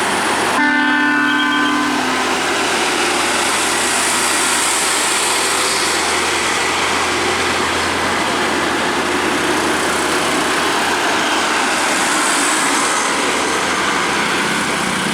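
A tour bus's multi-tone air horn sounds one steady chord for about a second and a half near the start. It is followed by a steady, loud rush of engine and road noise as the bus goes by.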